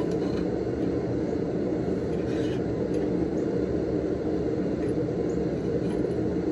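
Steady low roar of the forge running in the shop, with a faint short scrape of steel about two seconds in as the hook is adjusted on the rod.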